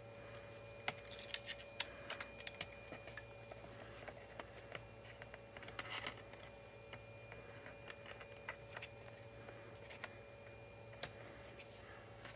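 Scattered light clicks and taps of plastic laptop parts being handled and pressed into place during reassembly, irregular and quiet, over a faint steady hum.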